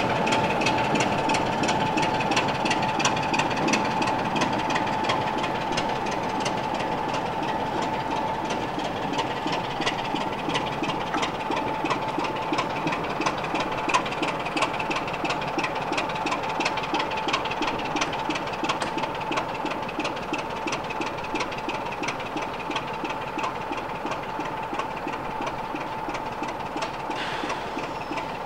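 Class 26 diesel locomotive's Sulzer six-cylinder engine running with a fast, even clatter and a steady high whistle over it, growing slowly quieter.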